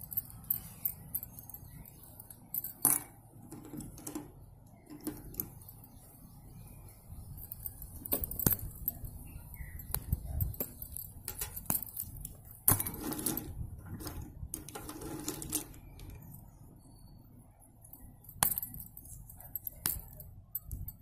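Slate pencils being snapped into short pieces by hand: irregular sharp clicks and snaps, with a couple of longer, grainier stretches a little past the middle.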